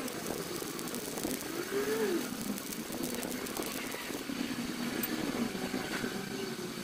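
Shielded metal arc (stick) welding arc from a Kazumi 200A inverter welder set at 110 amps, burning a 6013 electrode: a steady crackling hiss that thins out near the end as the arc is broken.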